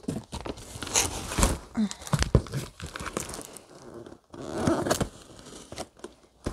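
Packing tape on a cardboard box being cut with a knife and pulled away: irregular crackling, tearing and scraping, with sharp knocks and rustles as the box is handled.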